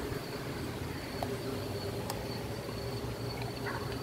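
Insects trilling steadily at one high pitch, over a low rumble of wind on the microphone, with a couple of faint clicks.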